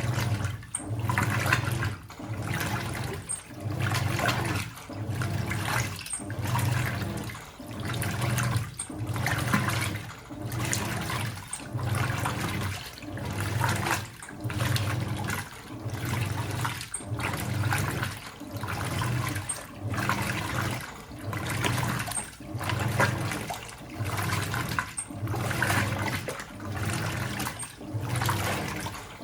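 Hoover 800RL top-loading washing machine agitating a tub of water: the agitator churns and sloshes in quick strokes about every second and a quarter, with very little pause between them, over a low motor hum.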